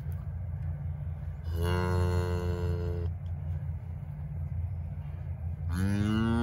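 Cattle mooing: two long calls, the first holding a steady pitch for about a second and a half, the second rising in pitch near the end, over a steady low rumble.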